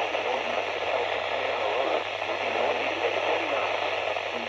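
Weather radio reception full of steady static hiss, with a constant low hum underneath and a faint voice barely showing through the noise.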